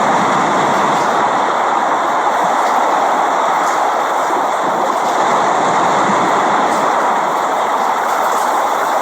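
Steady, dense rainfall: an even hiss of rain that holds without pause.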